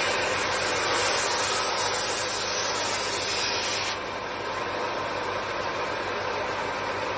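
Electric wood planer's cutterhead shaving a wooden stick, cutting a bevel along its edge: a loud, hissing cut for about four seconds, then the machine runs on unloaded, quieter, with a steady hum.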